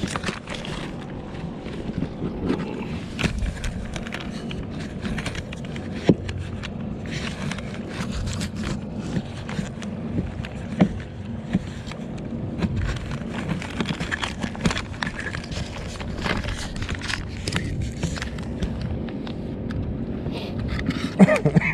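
Scattered knocks, taps and scrapes on the plastic deck of a fishing kayak over a steady hiss of outdoor wind and water noise.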